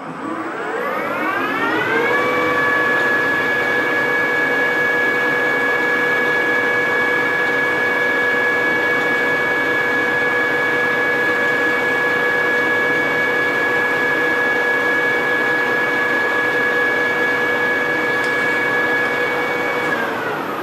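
Precision Matthews PM 1440TL metal lathe spindle spinning up with a rising whine over about two seconds, running at a steady speed with an even motor and gear whine, then winding down near the end.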